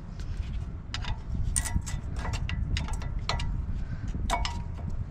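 Sharp metal clicks and clinks of brake pads being seated into new anti-rattle clips in a truck's front brake caliper bracket, an irregular run of about ten taps with a short ring, over a steady low rumble.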